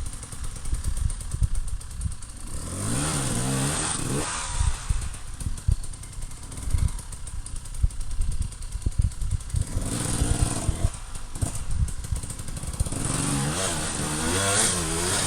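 Enduro motorcycle engine revved in short bursts, its pitch rising and falling about three seconds in and again near the end, with low thumps and knocks between the revs.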